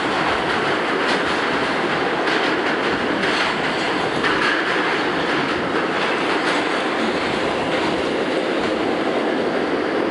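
Inside an R68 New York City Subway car running at speed through the tunnel: a steady loud rumble of wheels on rail, with irregular clicks from the wheels over the track.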